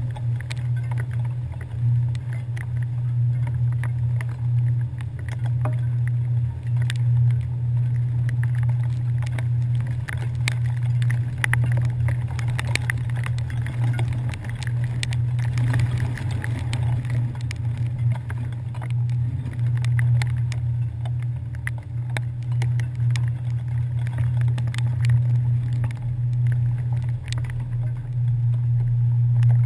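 Ferry engines running with a steady low drone, with scattered small ticks over it.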